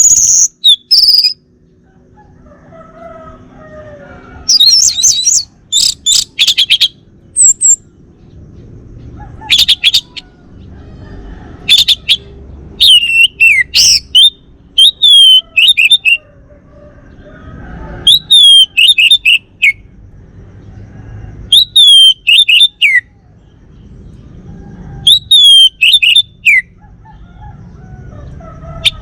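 Male orange-headed thrush singing: loud phrases of short, high, downward-slurred whistles, repeated every few seconds. Fainter, lower chirps are heard between the phrases.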